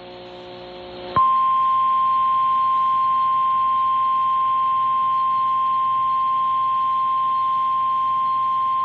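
NOAA Weather Radio 1050 Hz warning alarm tone, played through a weather radio receiver: one steady high tone that starts about a second in over receiver hiss. It signals that a warning broadcast is about to be read.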